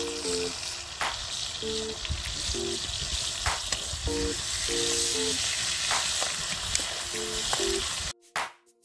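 Boiled jackfruit pieces frying in hot oil in a kadai, a steady sizzle with a few sharp clicks, over light background music of short repeated notes. The sizzle cuts off abruptly near the end.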